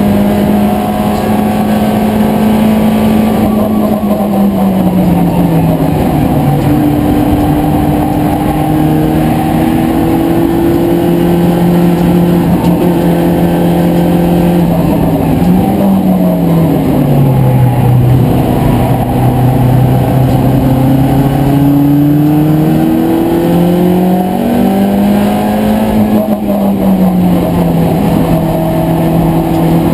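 In-cabin engine of a BMW Compact race car at racing speed, loud and continuous, its pitch falling as it slows for corners and rising again as it accelerates, several times over.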